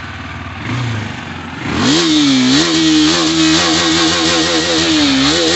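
KTM RC 390's single-cylinder four-stroke engine running, then revved hard about two seconds in and held at high revs. Its pitch dips and climbs back several times as the throttle is blipped.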